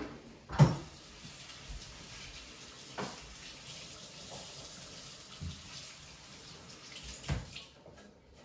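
Kitchen sink faucet running steadily as hands are washed under it, shutting off near the end. A few knocks on top, the loudest about half a second in.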